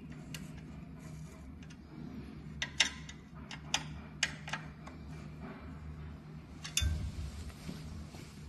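Sharp clicks from a hand screwdriver turning a screw in a cup holder clamp on a treadmill handrail, several in quick succession about three to four and a half seconds in, then a louder knock about seven seconds in, over a steady low hum.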